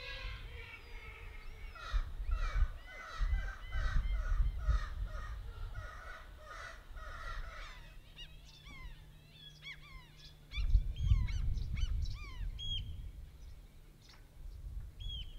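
Birds calling: a run of harsh calls repeated about twice a second, then after a cut many shorter, higher falling calls. Irregular low rumbling gusts run underneath, strongest a little past the middle.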